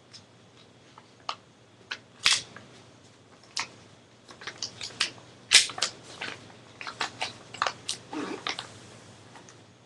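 Sheet of paper being folded and creased by hand: irregular crinkles and sharp crackles, coming thicker in the second half, with a longer rubbing rustle near the end as the fold is pressed flat.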